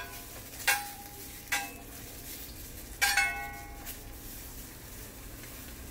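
Metal spatula knocking and scraping against a hot, dry cast iron skillet three times as cherry tomatoes are rolled around to char. Each knock rings briefly, and the third, about three seconds in, rings the longest. A faint steady sizzle runs underneath.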